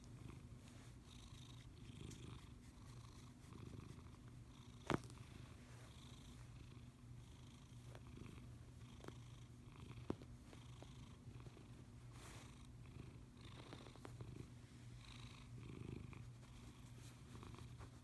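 Domestic cat purring steadily with a low rumble, its breathing wheezy. Two sharp clicks, about five and ten seconds in.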